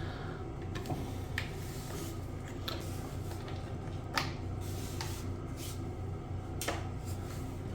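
A bidet being taken apart by hand: scattered sharp clicks and light knocks of its parts being handled, about five in all, over a steady low hum.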